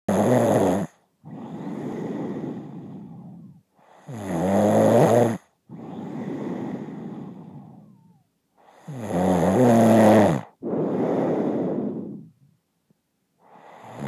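A sleeper snoring in a steady rhythm, about one snore every four seconds: a loud, rattling intake of breath lasting about a second, then a longer, softer hissing breath out. Three full snores, with a fourth starting near the end.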